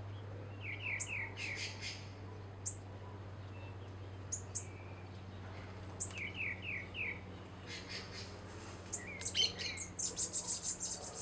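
Small songbirds chirping: scattered thin, very high chirps, two short series of four quick falling notes, and a burst of rapid chirping near the end.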